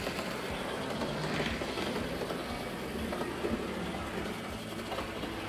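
Lima M-636 HO-scale model locomotive with a Ringfield motor running steadily along the layout track, a constant motor and wheel hum; freshly serviced and lubricated, it runs smoothly.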